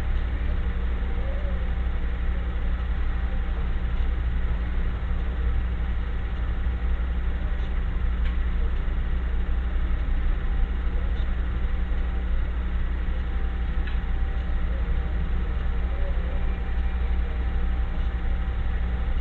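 A steady low hum with a few faint constant tones above it and the odd faint tick, even in level throughout.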